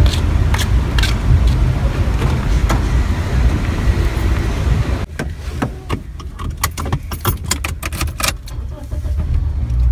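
A steady low rumble in the open air, with a few clicks and a car door being opened. About halfway through, the sound moves inside the car, which is much quieter, and there is a quick run of sharp clicks and jingling from car keys and handling inside the cabin.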